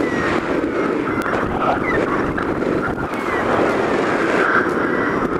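Airflow rushing over the camera microphone of a hang glider in flight, a steady wind noise, with a few faint short high chirps over it.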